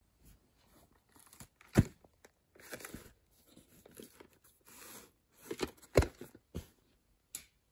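A plastic clamshell VHS case being handled and turned over on a cloth surface: scattered rustling with sharp clicks and knocks, the loudest a little under two seconds in and again about six seconds in.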